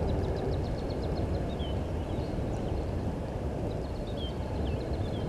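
Birds calling over a steady low rumble of outdoor background noise. A rapid high ticking trill comes in the first second and again about four seconds in, and short high down-slurred notes come now and then.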